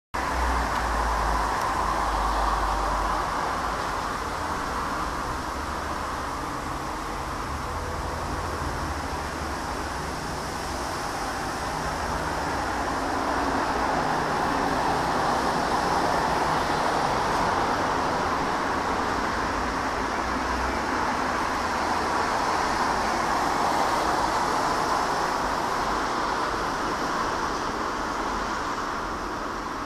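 Distant roar of a Boeing 777 jet airliner's engines passing at cruise altitude: a steady, even rush that slowly swells and fades.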